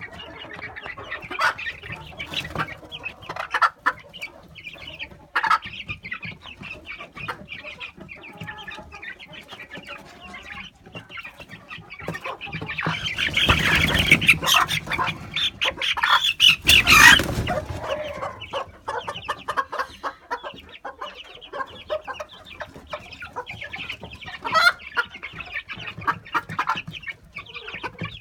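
Chickens clucking and calling in a string of short calls. There is a louder, noisier stretch roughly halfway through that lasts several seconds.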